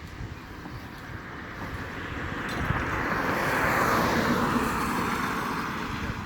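A vehicle passing by: a rushing noise that builds to a peak about four seconds in and then fades, over a low rumble.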